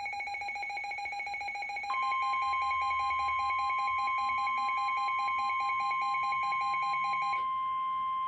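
Electronic emergency alert tones. A rapid, buzzy pulsing signal is joined about two seconds in by a loud, steady single-pitch alert tone, the 1050 Hz warning tone used on weather alert broadcasts. The pulsing cuts off near the end while the steady tone keeps going.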